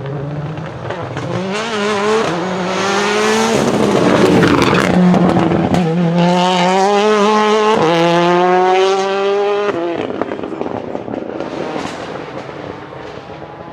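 Ford Focus WRC rally car's turbocharged 2-litre four-cylinder accelerating hard through several gears, the engine note climbing between quick upshifts. It is loudest in the middle and fades out after about ten seconds.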